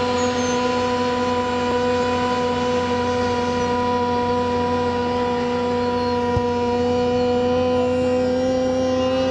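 A football commentator's drawn-out goal call, "¡Gooool!", shouted on one steady high note held for the full nine seconds without a break.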